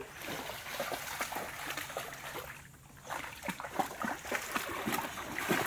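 A boxer dog lapping water from a stream: quick, irregular splashy laps, with a short pause about halfway through.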